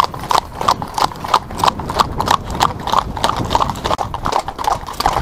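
Horse's hooves clip-clopping on a tarmac lane in a steady rhythm of about three strikes a second.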